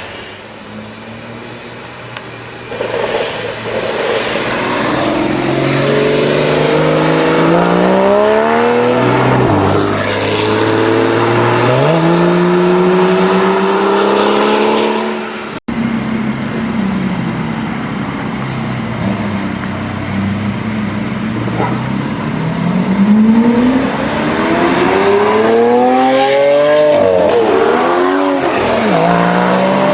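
Porsche Cayman GT4's flat-six engine accelerating hard, rising in pitch through the revs and dropping at each upshift. It breaks off abruptly about halfway through, then comes back and pulls up through the revs again.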